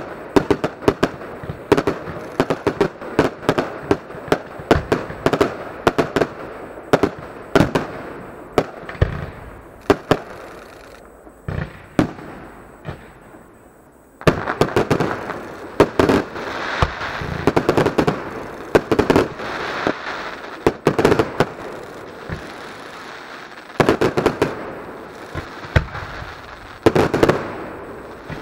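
Fireworks display: a rapid run of launch thumps and aerial shell bangs from shells and cakes. It thins out to a lull in the middle, then a fresh volley of bangs starts suddenly and goes on in clusters.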